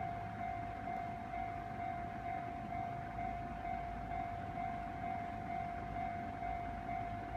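Japanese level-crossing warning bell ringing steadily at about two strikes a second, over a low rumble.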